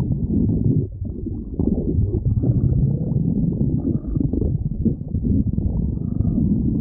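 A hungry person's stomach growling: a continuous low, gurgling rumble that briefly drops away about a second in, then resumes.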